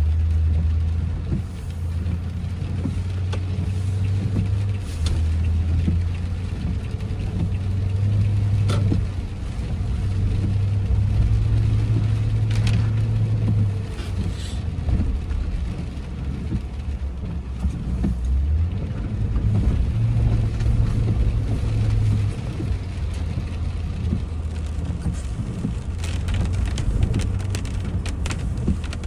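Car engine idling, a steady low hum whose pitch steps slightly up and down now and then, with scattered light taps over it.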